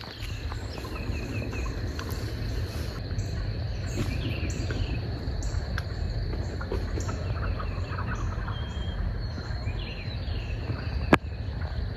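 Wild turkey gobbling in the distance over a woodland bird chorus and a steady high insect drone, with a steady low rumble underneath. One sharp click sounds near the end.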